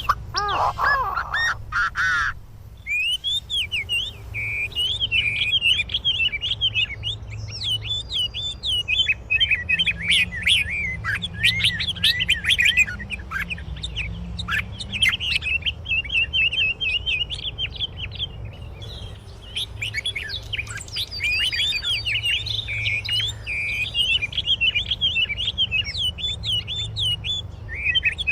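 Small birds chirping and twittering rapidly in a dense, busy stream of high calls. A lower, rising call opens it and cuts off after about two seconds, and the chatter pauses briefly about two-thirds of the way through.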